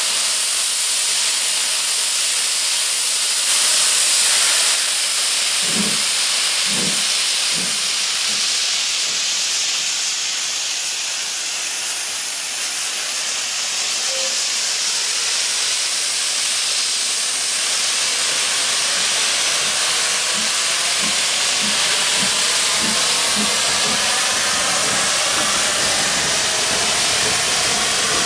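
Somerset & Dorset Joint Railway 7F 2-8-0 steam locomotive No. 53809 getting its train under way. Steam blows from its open cylinder drain cocks in a loud, steady hiss, with a few heavy exhaust beats about six seconds in and fainter regular beats later.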